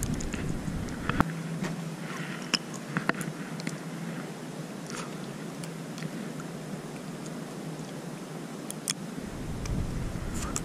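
Wind rumbling on the microphone, which drops away about a second in and comes back near the end, with scattered light clicks and ticks over it.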